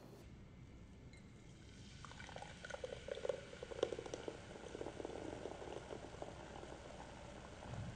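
Carbonated cola (Pepsi Black) poured from a can into a glass: the stream starts about two seconds in and runs on, splashing with the crackle of fizzing foam.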